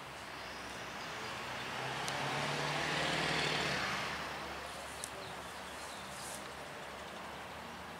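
A car driving past: its road noise swells to a peak about three seconds in, then fades away.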